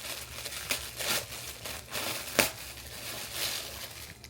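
Plastic packaging crinkling and rustling as clothing-haul items are handled and unwrapped, with one sharp snap a little past halfway.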